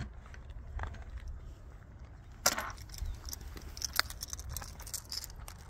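Metal speedloaders and loaded revolver cartridges clinking and rattling as they are handled, with a short clatter about two and a half seconds in and a sharp click about four seconds in.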